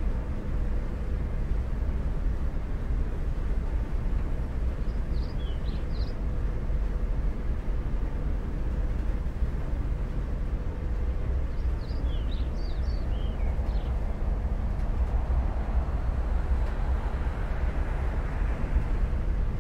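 Steady outdoor rumble, like wind on the microphone, with three brief clusters of high bird chirps. A broad rushing noise swells and fades about three quarters of the way through.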